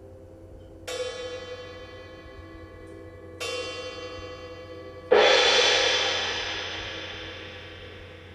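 Metal percussion struck three times. Two bell-like ringing strokes come about two and a half seconds apart, then a louder, fuller stroke that rings out and slowly fades.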